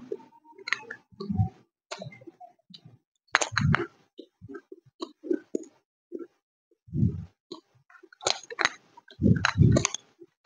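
Close-miked crunching and chewing of lumps of white Nakumatt edible chalk, in irregular clusters of sharp crunches with dull chewing thuds; the loudest bites come near the middle and near the end.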